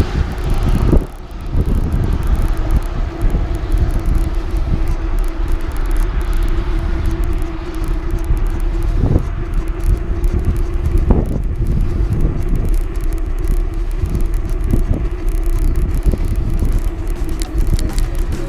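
A road vehicle running, with a steady hum and a constant low rumble, and a few short knocks along the way.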